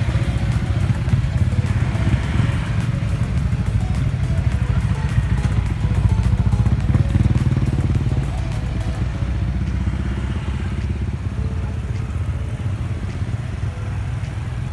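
Several small motorcycles and scooters running at low speed as they ride off past, their engines mixing into a steady rumble that eases off a little in the second half.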